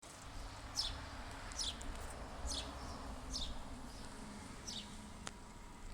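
Electric delivery van's reversing alert: a string of short, high chirps, each falling in pitch, repeating about once a second. It is a bird-like backup sound rather than the usual beep.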